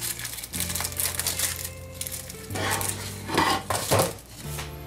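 Thin plastic film crinkling as it is peeled off a frozen rib-patty tray, then a clatter of the tray and a metal cookie sheet being handled, loudest between about two and a half and four seconds in.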